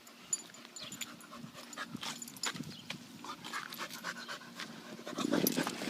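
A puppy panting and moving about, with scratching and rustling that get louder about five seconds in.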